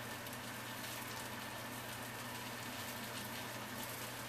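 Breaded onion rings deep-frying in a skillet of hot oil: a steady sizzle, with a low hum underneath.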